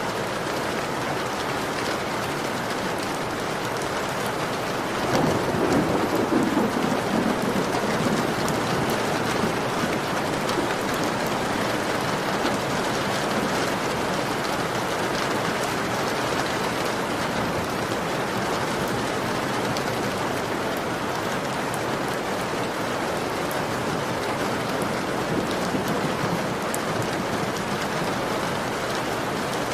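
Heavy rain falling steadily on a window, with a rumble of thunder starting about five seconds in and dying away over a few seconds.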